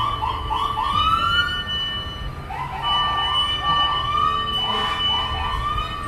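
Fire truck sirens sounding: bursts of quick rising yelp sweeps, about three a second, with a short pause about two seconds in, over a steady high tone.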